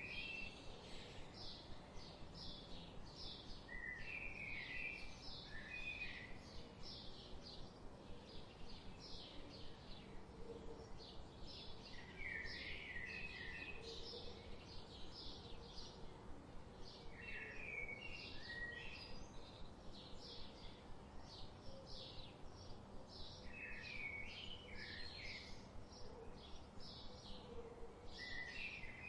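Birds calling outdoors: a short high chirp repeated about two to three times a second, with a lower warbled song phrase breaking in every five seconds or so, over a faint background hum.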